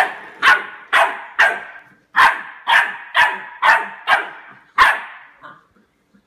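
Labrador retriever puppy barking in a run of about ten sharp barks, roughly two a second, with a short pause in the middle.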